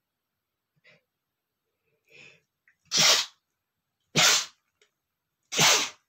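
A man sneezing three times in a row, each a loud, short burst, a little over a second apart, beginning about three seconds in.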